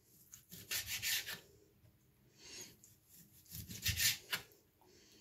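Kitchen knife slicing squid into calamari pieces on a cutting board: a few short rasping strokes through the flesh onto the board, the loudest about four seconds in.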